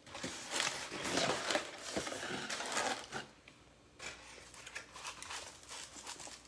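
Close-up handling of Domino's cheesy bread and its packaging: crackly rustling and soft clicks that die down about three seconds in, followed by fainter clicks.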